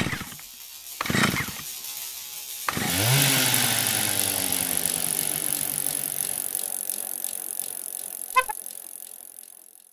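Mechanical sound effect for a chain-and-sprocket logo: two sharp clanks, then a whirring, rattling run that slowly winds down in pitch. A click comes near the end, and it cuts off.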